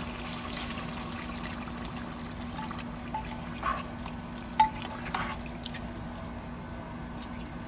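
Water poured into a pot of chicken and potato curry, sloshing as it mixes in, with a few light clinks of a metal spoon against the pot about halfway through.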